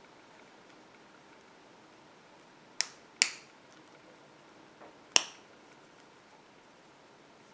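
Safety eye's backing washer being pressed down onto its post: three sharp clicks about three and five seconds in, with a fainter one between.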